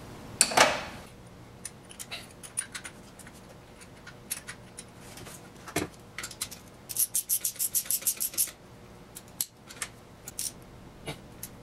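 Ratchet clicking in a quick run while new spark plugs are threaded into the cylinder head, with scattered metal clinks of the tools and a sharper clink about half a second in.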